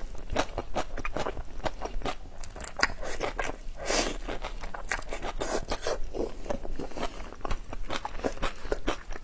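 Close-miked eating sounds of whole shrimp in chili sauce being bitten and chewed: a dense, irregular run of shell crunches and crackles.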